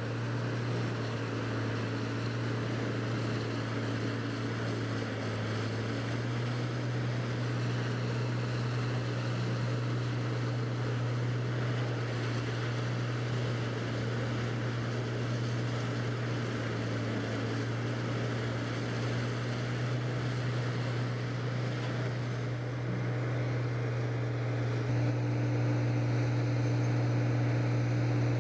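A large machine's engine running steadily under load, with a constant low drone and mechanical noise over it. It grows a little louder near the end.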